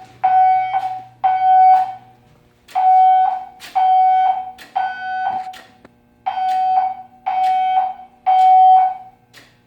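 Fire alarm horn sounding a loud, steady-pitched tone in short blasts grouped in threes with a pause between groups. This is the temporal-three evacuation signal of a building fire alarm system.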